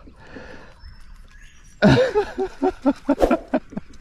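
A man laughing, a quick string of about eight short 'ha' sounds starting about two seconds in, a rueful reaction to a missed hookset.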